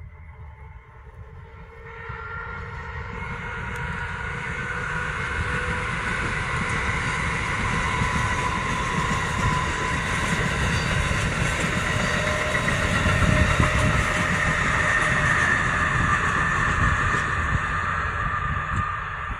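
Amtrak passenger train hauled by an electric locomotive passing at speed. Rumble of wheels on rail with a steady high whine, building over the first two seconds and easing slightly near the end.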